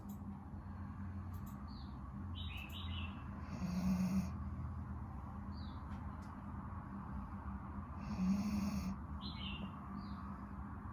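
Dog snoring in its sleep, steady breathing with louder snores about four seconds and eight seconds in.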